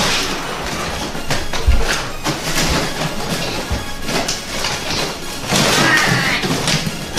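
Paper shell of a giant surprise egg being torn and crushed by hand: crackling and rustling paper with many sharp crinkles, and a thump just under two seconds in.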